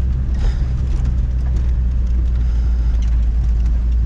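Vehicle engine and road noise heard from inside the cab while driving: a steady, loud low drone.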